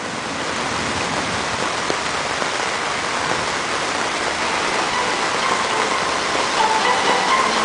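Steady rain falling, swelling up over the first second and then holding even. Near the end, faint music notes begin to come in over the rain.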